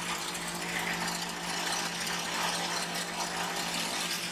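Car engine running with a steady hum as the car creeps forward, its tyre rolling on concrete up against a row of dishwasher pods without a clear crunch.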